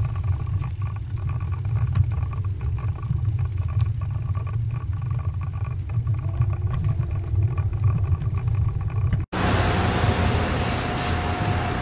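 Gusty low rumble of wind buffeting the microphone and tyres running over brick pavers while riding a bicycle. About nine seconds in it cuts to even city street noise with a faint steady tone.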